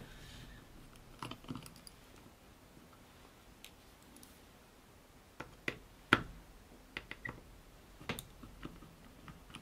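Small scattered clicks and ticks from a small screwdriver and tiny self-tapping screws on the acrylic case of a small electronic air quality monitor as it is taken apart. The clicks are irregular, with the sharpest one about six seconds in.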